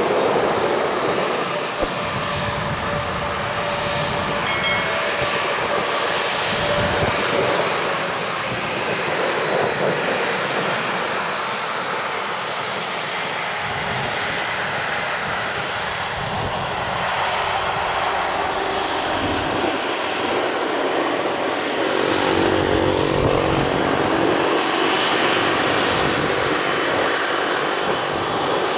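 Airbus A330-300 jet engines running at taxi power as the airliner rolls toward the runway: a steady, continuous engine noise with faint tones that shift slightly.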